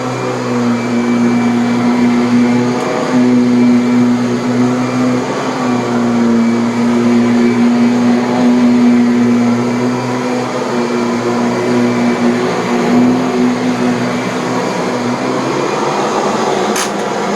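Kirby Avalir vacuum cleaner running in canister mode with its tech drive on, working a pillow-top mattress. It gives a loud steady motor drone whose pitch wavers as the nozzle is pushed and pulled. Near the end the drone eases and there is one sharp click.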